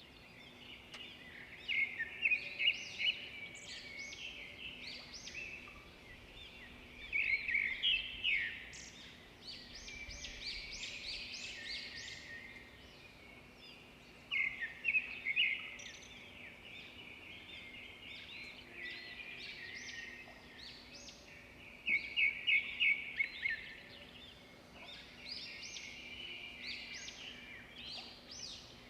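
Several songbirds singing and chirping together over a faint steady background, with short quick trills and repeated chirps overlapping; the singing swells into louder flurries of rapid chirps every several seconds.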